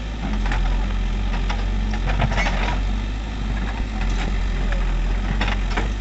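CAT 424B backhoe loader's diesel engine running steadily as the backhoe digs, with several short knocks and scrapes from the bucket and boom working through soil and roots.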